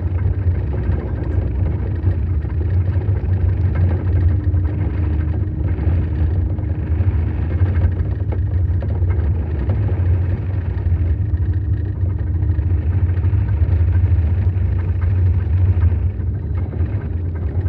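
Engine of a tracked snow crawler (snowcat) running under way with a steady low drone.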